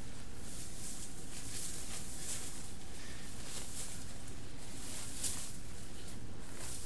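6 mm stainless steel flat-ring mail shirt jingling and rustling in irregular short bursts of metallic clinking as it is bunched up and worked onto the arms, over a steady low background hum.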